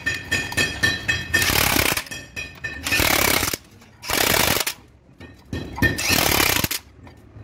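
Corded electric impact wrench hammering on the rear flange nut of a truck gearbox in four short bursts, each under a second long, after a second of sharp metallic knocks.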